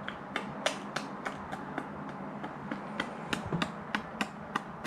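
Plastic toy figures tapping on a toy playset in quick light clicks, about four a second, in a steady rhythm.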